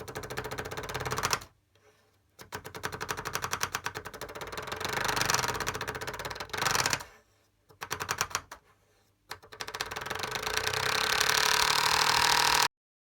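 Home-made foley effect: a fast, dense mechanical rattling clatter like machine-gun fire, in four bursts with short gaps. The last and longest burst grows louder and cuts off suddenly near the end.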